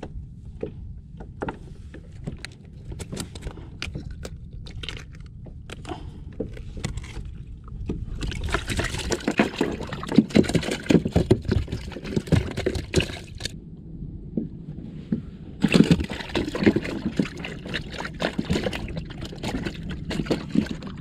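Water sloshing and splashing against a plastic kayak hull, with many small knocks and clicks over a steady low rumble. It grows louder twice, from about eight to thirteen seconds in and again from about sixteen seconds in.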